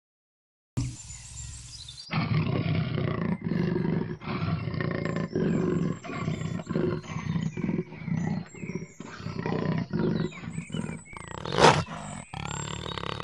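A large wild cat growling and snarling: after a brief silence, a run of rough, pulsing growls starts about two seconds in, with one loud harsh snarl near the end.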